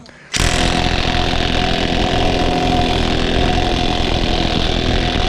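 Cordless impact wrench hammering steadily on a minivan's lug nut, starting suddenly about a third of a second in, with a steady whine over the rapid blows. The nut does not come free, which the mechanic puts down to seized lugs.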